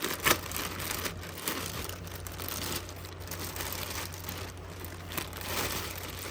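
Plastic packaging crinkling and crackling irregularly as a plush toy is handled, with a sharp crackle just after the start.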